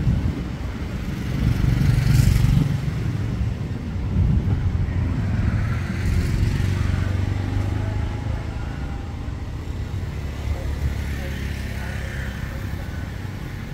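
Road traffic: motor vehicles running past with a low engine hum, loudest about two seconds in and swelling again a little later.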